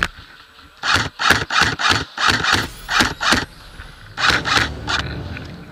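Magpul Masada ACR airsoft replica firing a quick string of single shots, about three a second, roughly a dozen in two bursts with a short pause between them.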